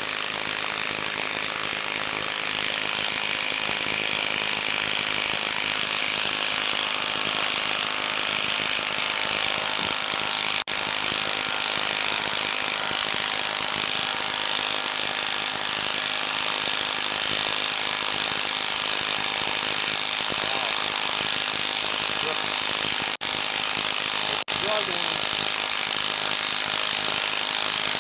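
Milwaukee M12 Stubby 1/2-inch cordless impact wrench hammering continuously as it drives a 10-inch lag screw into a wooden log round, with three brief breaks in the hammering, one about a third of the way through and two near the end.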